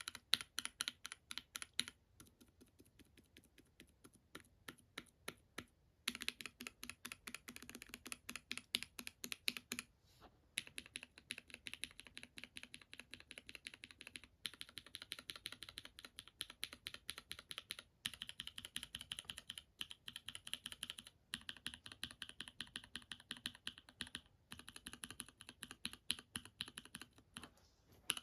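Mechanical keyboard switches mounted in a 60-key switch tester, each pressed rapidly, about six clicks a second, for a few seconds before a short pause and the next switch. One switch, about two seconds in, is much quieter than the rest.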